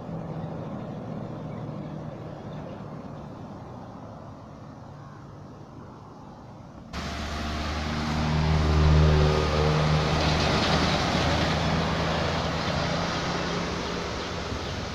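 Trucks passing on the road: first a lorry's engine running steadily at moderate level, then, after an abrupt cut about halfway through, a louder heavy truck approaching and passing close by with engine and tyre noise, loudest shortly after the cut and then fading away.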